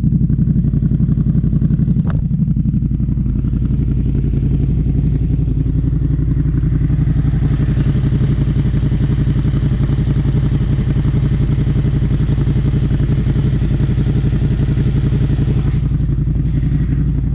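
CFMoto 800 EX side-by-side's V-twin engine idling steadily through a custom exhaust with a carbon-fibre muffler, with one sharp click about two seconds in.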